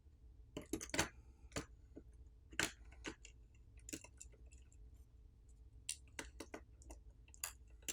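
Irregular small clicks and taps of phone parts and hand tools being handled during a smartphone disassembly, the loudest about a second in and again a little later.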